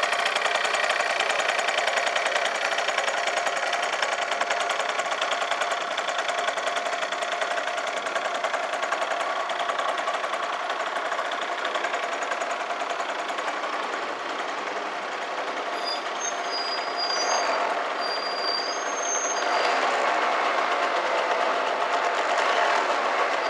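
Yamaha Vino 50cc two-stroke scooter engine idling steadily. It dips slightly in level about halfway through, then comes back up.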